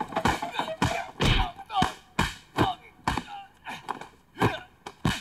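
Martial-arts film fight sound: a quick, irregular series of punch and kick impacts, with the fighters' short grunts and cries between the blows.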